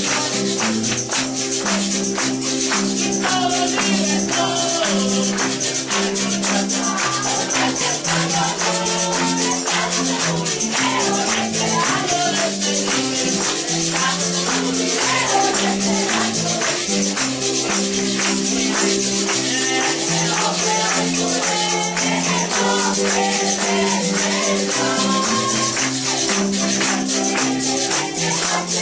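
Lively church music: a bass line moving through held notes under constant rhythmic shaken percussion, with a melody above.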